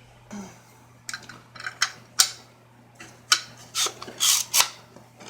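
Handling noise from a freshly loaded air nailer/stapler: about a dozen short, irregular clicks and scrapes. The loudest is a sharp click a little over two seconds in.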